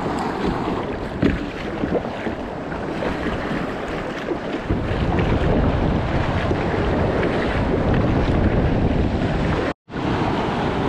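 Sea water splashing and lapping around a sit-on-top kayak as it is paddled, with wind rumbling on the microphone, heavier from about halfway. The sound drops out for a moment near the end.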